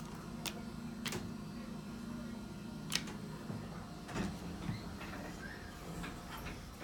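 Otis Series 1 elevator in operation right after a car call to floor 1: a steady low hum with several sharp clicks and knocks, the loudest about three seconds in.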